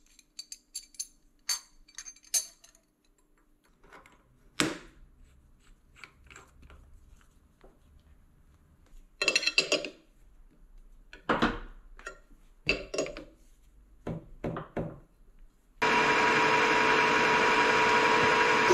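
Metal parts and tools being handled at a workbench: scattered clinks, taps and knocks. Near the end a workshop machine starts suddenly and runs steadily with a held whine.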